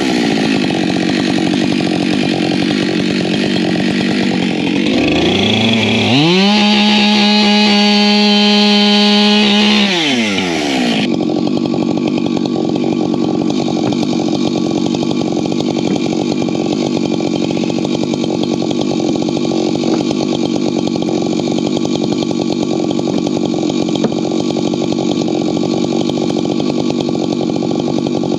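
Husqvarna professional chainsaw idling, then revved up to full throttle for about four seconds and let back down to idle. It keeps running steadily for the rest of the time.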